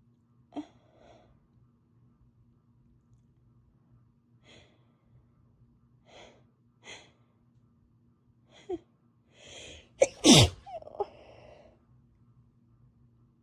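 A person with a cold building up to a sneeze: a run of short, sharp breathy inhales over several seconds, a longer intake, then one loud sneeze about ten seconds in, followed by a brief breath.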